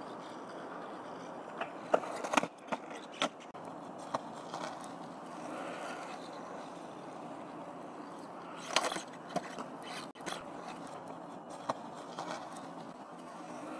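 Longboard wheels rolling on asphalt, a steady rumble, with sharp clacks of the board's wheels and deck as it is spun and landed during freestyle tricks. The clacks come in a cluster about two to three seconds in and again around nine seconds.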